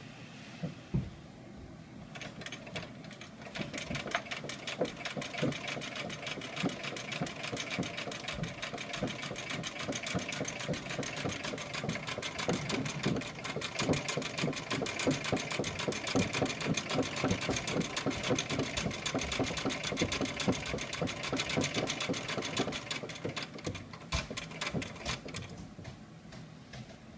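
1865 Florence sewing machine running, a fast, even clatter of mechanism clicks that starts about two seconds in and stops shortly before the end.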